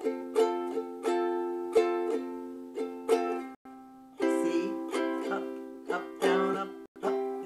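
Ukulele strummed in a down, down, up, pause, up, down, up pattern on an F chord, each strum ringing and fading. About three and a half seconds in there is a brief break and the strumming continues on a different chord.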